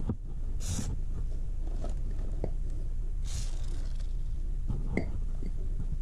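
A rag being rubbed along a motorcycle drive chain during cleaning with degreaser: soft rubbing and small clicks, with two short hisses, about half a second and three seconds in, over a steady low hum.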